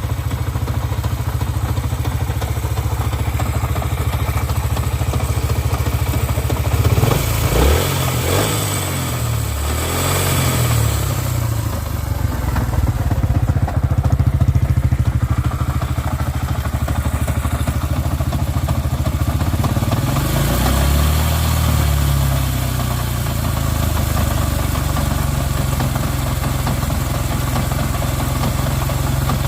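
Yamaha XTZ125's single-cylinder four-stroke engine idling, revved up and back a few times about a quarter of the way in and again about two-thirds in. It is running with an abnormal noise that replacing the cylinder head has not cured.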